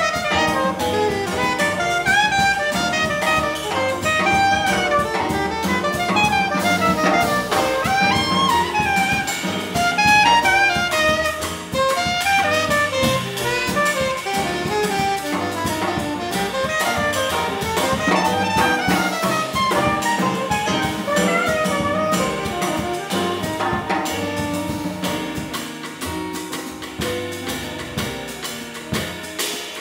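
Jazz quartet playing: a soprano saxophone solos in quick runs over double bass, keyboard and drum kit with cymbals. Near the end the drums come more to the front.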